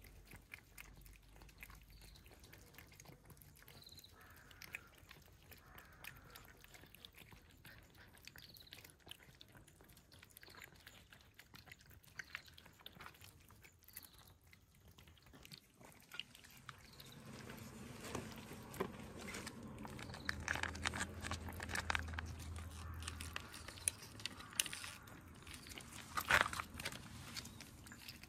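Cats chewing and crunching their food: many small, crisp bites and clicks, growing louder in the second half.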